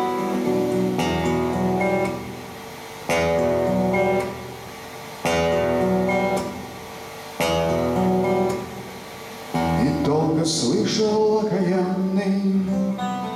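Acoustic guitar playing an instrumental passage, a chord struck about every two seconds and left to ring. About ten seconds in, a man's voice starts singing over the guitar.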